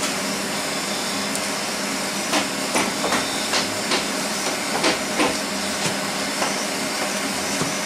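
Small steel differential parts clinking and knocking together irregularly, about a dozen light metallic knocks, some ringing briefly, as they are handled over an oil drain pan. A steady hiss runs underneath.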